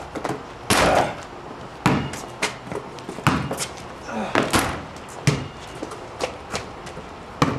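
A basketball bouncing on a concrete driveway and banging off the hoop during dunk attempts. About a dozen sharp, irregularly spaced knocks and thuds.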